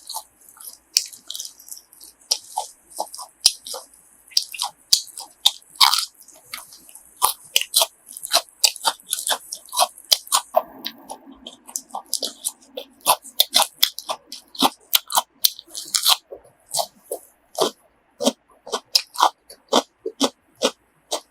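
Close-miked eating sounds: a rapid, irregular series of crunchy bites and chewing of grilled pork offal.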